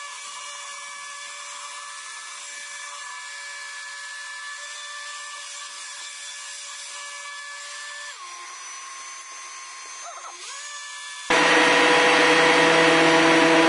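Handheld stick blender running in thickening hot-process soap batter in a stainless steel pot, a steady motor whine. About eight seconds in, its pitch drops for a couple of seconds and then recovers. Near the end it suddenly gets much louder.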